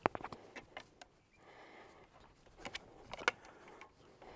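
Bracing wire being wrapped around a wooden fence post: scattered metallic clicks and scrapes, in a quick cluster at the start and another about three seconds in.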